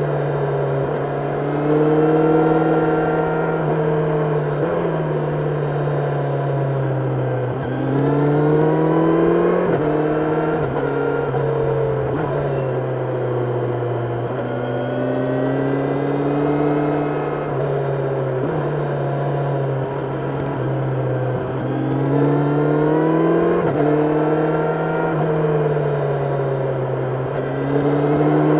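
Kawasaki Ninja 1000SX inline-four engine heard onboard, its pitch climbing and falling again and again as the bike accelerates and rolls off the throttle on a twisty road.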